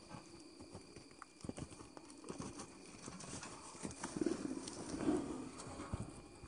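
Hoofbeats of an American Paint Horse galloping and frolicking on grassy pasture ground, an uneven run of dull thuds that grows louder about four seconds in.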